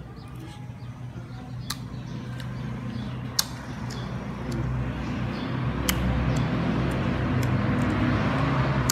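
Chewing of a sour lemon slice with three sharp clicks, over a steady low mechanical drone that grows louder in the second half.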